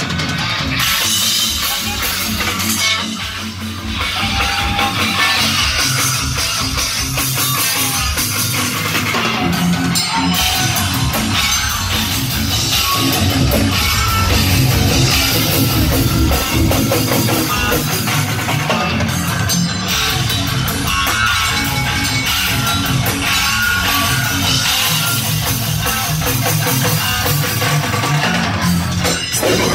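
A technical death metal band playing live and loud: fast drum kit with distorted extended-range guitars and six-string bass, one continuous stretch of music with a brief dip a few seconds in.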